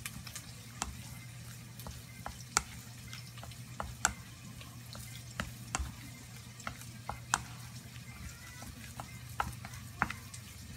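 Chopsticks stirring soft mashed kabocha squash in a stainless steel bowl, with irregular sharp clicks and knocks as they strike the bowl's side, over a low steady hum.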